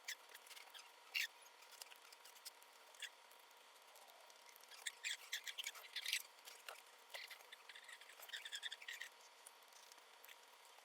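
Faint scattered clicks, ticks and light scraping of small hand tools on the internals of an opened MacBook Pro, with two busier clusters of clicks midway and near the end.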